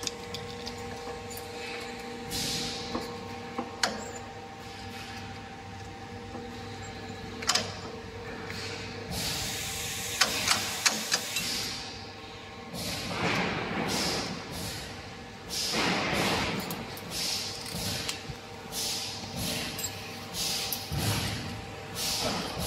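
Steady hum of factory machinery, with scattered metallic clicks and knocks as stainless-steel parts of a filling machine are handled and fitted. About halfway through, a run of repeated rushing swells begins, each rising and falling within about a second.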